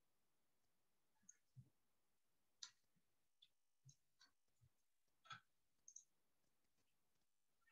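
Faint, scattered keystroke clicks on a computer keyboard, then a mouse click.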